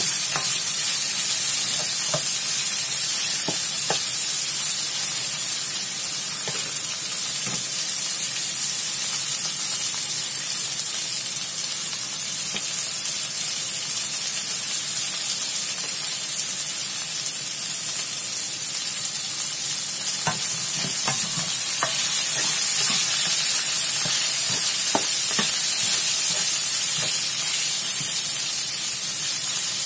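Chicken strips and garlic cloves sizzling in hot oil in a wok as the garlic is fried until fragrant, a steady hiss. A spatula scrapes and stirs the pan now and then, mostly at the start and again in the last third.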